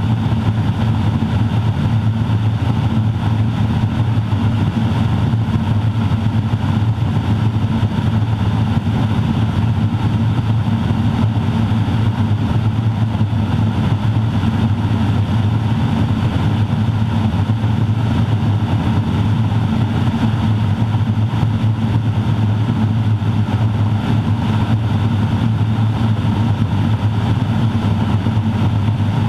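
Cockpit noise of a Grumman Ag Cat "FatCat" crop duster in flight: its Garrett TPE331-6 turboprop engine and propeller running steadily with a strong low hum, the uncomfortable resonance this airplane produces.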